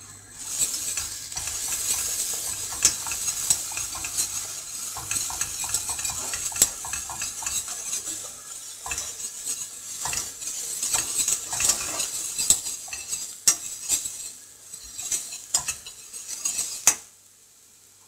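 Wire whisk stirring and scraping in a stainless steel saucepan with many quick clinks against the metal, over the steady sizzle of tomato and pepper paste frying in a butter, oil and flour base. The stirring and sizzle stop about a second before the end.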